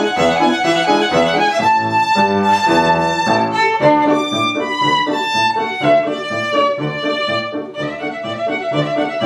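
Solo violin playing a csárdás, bowing a quick run of notes, over a piano accompaniment with a regular bass pattern.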